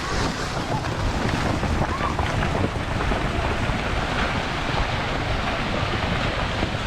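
Steady outdoor rushing noise, like wind buffeting the microphone, with faint voices under it.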